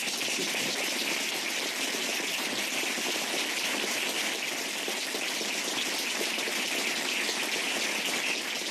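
Audience applause: many hands clapping in a dense, steady wash.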